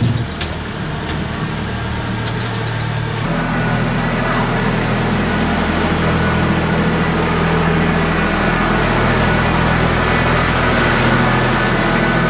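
Engine of a small motorized zoo tour train, a locomotive-styled tractor pulling open passenger carriages, running steadily as the train moves; its note shifts about three seconds in.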